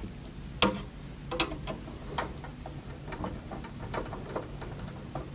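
Metal thumb screws being threaded back into a PC case's expansion-slot bracket to hold a graphics card. The screws and bracket make a run of small, irregular metallic clicks and ticks, the loudest about half a second and a second and a half in.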